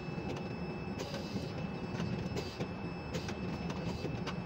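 Ship-to-shore container crane's machinery running, heard in the operator's cab: a steady low drone with a faint high steady tone and scattered light clicks and ticks.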